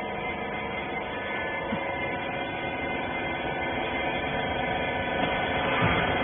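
Hydraulic rag baler running, its pump motor giving a steady hum.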